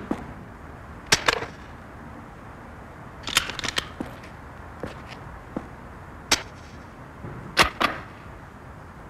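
Sharp metallic clicks and clacks of a military rifle being handled, some in quick pairs or clusters, every second or so.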